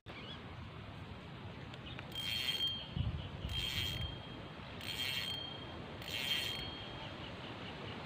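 Spinning fishing reel being cranked in four short spurts, each a brief whirring with a steady high tone from the turning gears and rotor, about a second apart.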